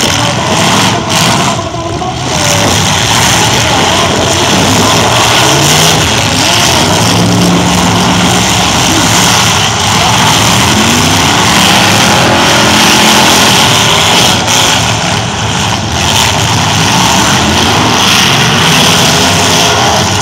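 Several demolition derby pickup trucks' engines revving at once, their pitch rising and falling, over a loud, dense roar of engine noise.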